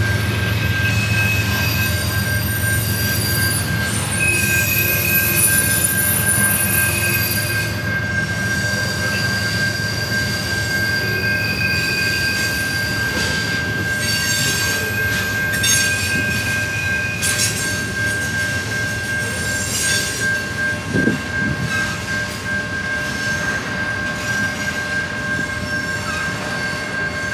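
A mixed freight train of tank cars, covered hoppers and autoracks rolling steadily past with a continuous rumble of wheels on rail. A steady high wheel squeal runs through it, with shorter, higher squeals coming and going above it.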